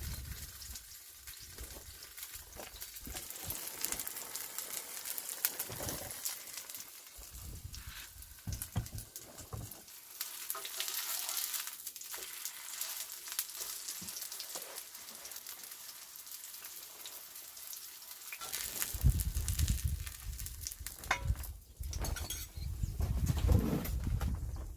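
Wild chive pancake (buchujeon) frying in oil in a pan: a steady sizzle with fine crackling. In the last few seconds, low bumps and handling knocks join the sizzle.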